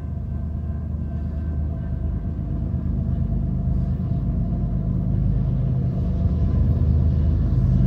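Low steady rumble of an approaching diesel freight locomotive, growing slowly louder.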